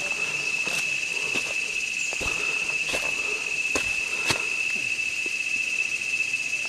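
Insects buzzing in a steady, constant high pitch, with footsteps on dry leaf litter falling about once a second.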